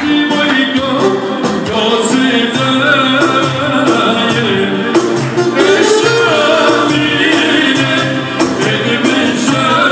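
Albanian folk dance music with a singer over instruments and a steady beat.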